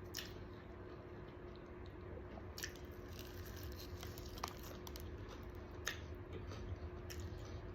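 Faint chewing and crunching of crispy fried chicken, with a few soft clicks, over a low steady hum.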